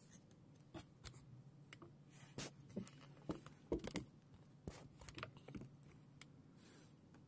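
Stiff cardboard pages of a Blu-ray set's fold-out disc book being handled and turned by hand: faint scattered rustles, scrapes and soft clicks.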